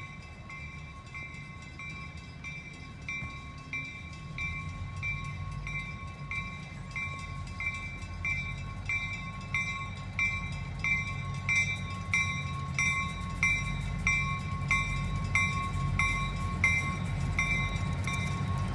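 Grade-crossing warning bell ringing steadily, about one and a half strikes a second, over the low rumble of an approaching diesel locomotive that slowly grows louder.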